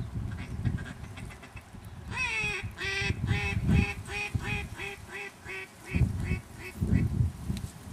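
Duck quacking in a hen mallard's descending series: one long drawn quack about two seconds in, then about a dozen short quacks at roughly three a second, growing softer and stopping near the end.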